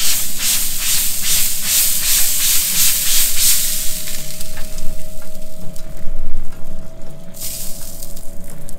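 Trigger spray bottle squeezed rapidly, about three squirts a second, misting apple juice onto a pork roast turning on a hot grill's rotisserie, each squirt a burst of hiss. The spraying stops after about three and a half seconds, and a short burst of hiss comes again near the end. A faint steady whine runs underneath.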